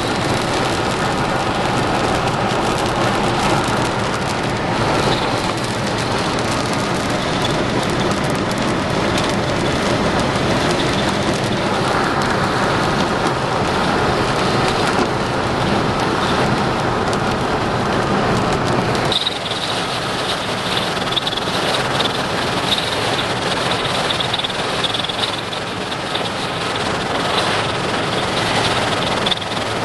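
Steady heavy rain with vehicle rumble; about 19 seconds in the low rumble drops away, leaving mostly the hiss of the rain.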